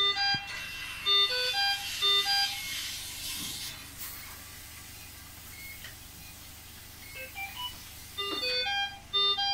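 Background music: a simple keyboard-like melody of short, stepped notes. It thins out in the middle and picks up again near the end, over a steady hiss.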